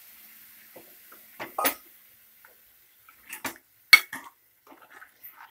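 Steel ladle clinking and scraping against the sides of an aluminium pressure cooker while stirring chicken in newly added water. Irregular knocks, the sharpest about four seconds in.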